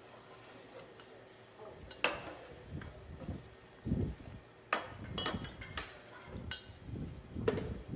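Kitchen utensils and dishes being handled: several sharp clinks and knocks from about two seconds in, mixed with dull thumps.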